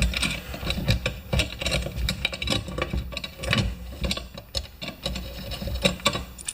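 Irregular clicks, knocks and light clanks of metal hand tools and a tire rim being handled during a lawn-tractor tire change, several a second.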